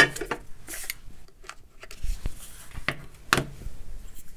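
A handful of sharp clicks with light rattling and rustling between them, from a precision screwdriver bit set case being handled and a driver and bit taken out of it.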